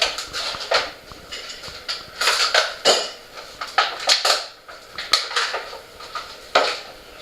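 Heavy raindrops or drips striking a hard surface: irregular sharp taps and knocks, sometimes several in quick succession, over a faint steady patter of rain.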